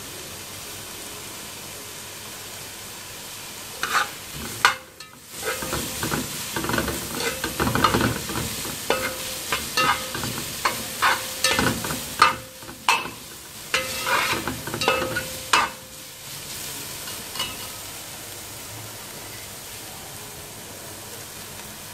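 Julienned vegetables sizzling in oil in a metal pot. From about four seconds in to about sixteen seconds, a metal spoon scrapes and clinks against the pot as they are stirred; the rest is a steady sizzle.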